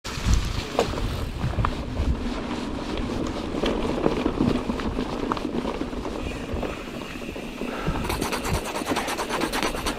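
Mountain bike rolling over a dirt trail, with tyre noise, rattles and knocks from the bike and a low wind rumble on the microphone. Near the end a fast, even ticking sets in, like a rear freehub clicking while the bike coasts.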